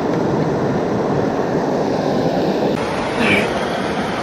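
Steady rush of river water running over a shallow, rocky riffle.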